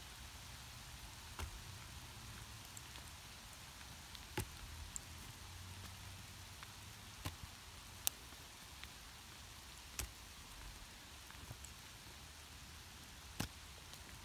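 Steady hiss of a hail shower falling on a grass lawn, with about six sharp clacks of a lacrosse ball being thrown and caught in lacrosse sticks, the loudest about eight seconds in.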